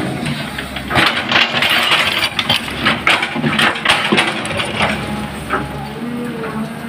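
Caterpillar hydraulic excavator's bucket digging into a pile of soil: a dense run of scraping, crunching and clinking for the first few seconds, then easing off, over the steady running of the diesel engine.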